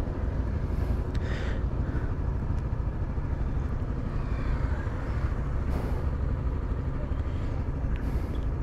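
Honda XRE 300's single-cylinder engine idling steadily at a standstill, while traffic swishes past a few times.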